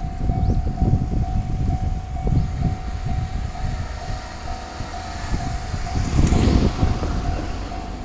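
Japanese level-crossing electronic bell of the 'Tohoku' tone type, dinging about twice a second. Under it a train runs through the crossing, with a low rumble and wheel clatter and a brief hissing swell about six seconds in.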